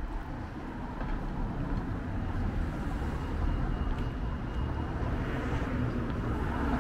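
Road traffic on a street: a steady low rumble with a passing car's engine and tyre noise swelling near the end.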